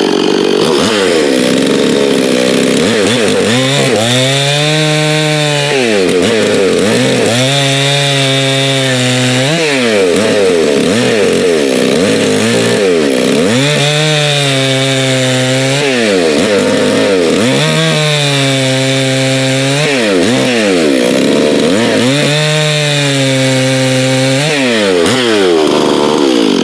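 Stihl MS 391 two-stroke chainsaw with a hand-filed chain, running at full throttle and cutting wood: the engine pitch drops as the chain takes load in each cut and rises again between cuts, several times over.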